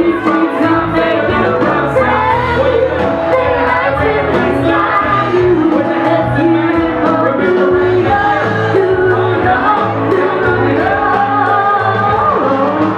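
Live band playing a pop song, with drums, piano and electric guitar under a woman and a man singing into microphones. Steady and loud, with a regular drum beat and a shouted, hype-style vocal edge.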